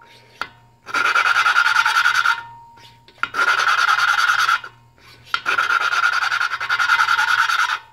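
Valve of a 1990s Briggs & Stratton 7 HP L-head engine being hand-lapped: a suction-cup lapping stick is spun rapidly back and forth, and grinding compound rasps between the valve face and its seat. The rasp comes in three long spells, with brief pauses and a light click as the valve is lifted and moved around.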